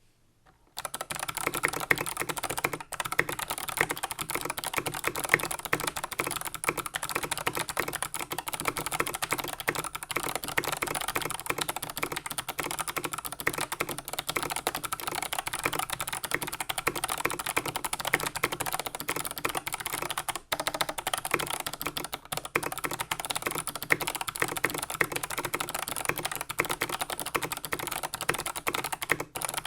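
Continuous fast typing on an NCR-80 tenkeyless mechanical keyboard with Kailh Box Jade clicky switches, each keystroke a sharp click. The switch springs are lubed and the case bottom is lined with foam, so there is no spring ping or hollow echo. Typing starts about a second in, with a brief pause near the third second.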